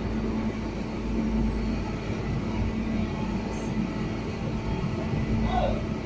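Diesel engine of a wheeled asphalt paver running steadily: a continuous low rumble with a steady hum.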